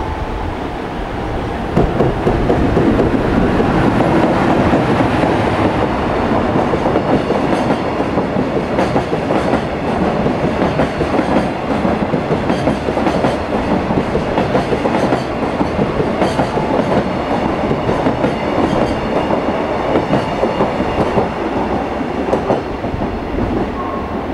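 JR Freight container train, headed by an electric locomotive, passing at speed. The noise rises sharply about two seconds in as the locomotive reaches the spot, then the long string of container wagons goes by with a continuous rattle and fast clickety-clack of wheels over the rail joints.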